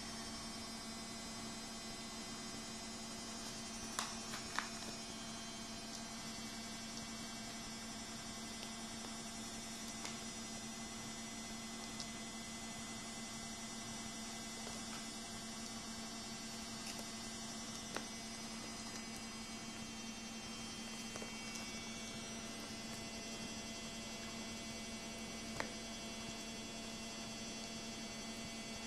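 Steady low electrical hum with a faint whine above it, broken by a few faint isolated clicks.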